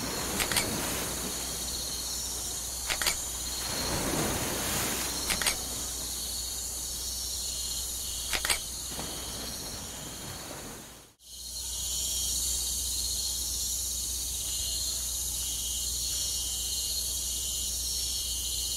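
Jungle ambience of chirping insects and crickets, with four short, sharp double clicks in the first nine seconds. About 11 seconds in the sound drops out for a moment and a steady insect ambience starts again.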